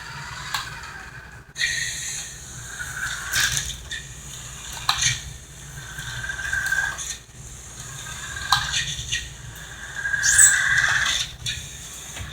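Toy remote control car's small electric drive motor whining in repeated short bursts, its pitch rising and falling as it speeds up and slows down while driving forward and back, with a few sharp clicks and knocks.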